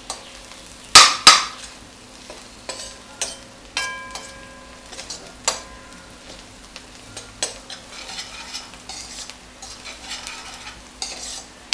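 A steel spoon stirring and scraping onions and green chilies frying in oil in a stainless steel kadai, with a low sizzle underneath. The spoon clinks against the pan throughout, two sharp knocks about a second in being the loudest, and a few strikes leave the metal pan briefly ringing.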